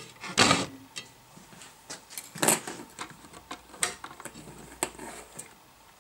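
Clicks and rustles of hands handling a small converter circuit board and its wire and clip leads on a workbench, a few sharp clicks spread through, the loudest about half a second in and another around two and a half seconds.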